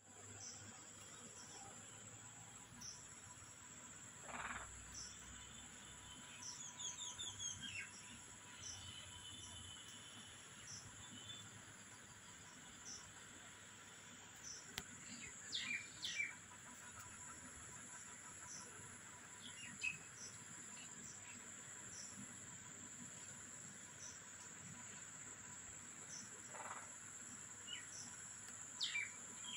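Faint, steady high-pitched drone of insects, with birds chirping here and there.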